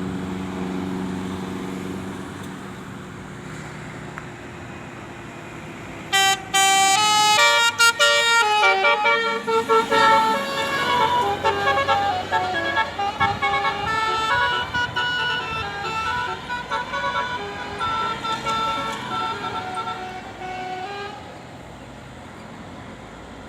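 Indonesian bus's multi-tone musical horn playing a rapid tune of stepped notes, starting about six seconds in and running for about fifteen seconds. Before it, a lower steady tone fades out over the first few seconds.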